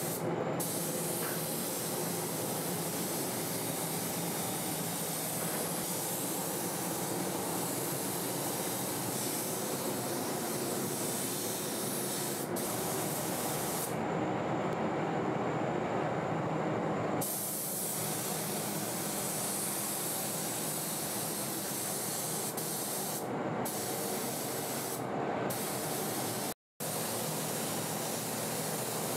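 Gravity-feed spray gun hissing steadily as it atomises paint with compressed air, over a low steady hum. The high hiss thins out for a few seconds about halfway through and twice briefly later, and everything cuts out for an instant near the end.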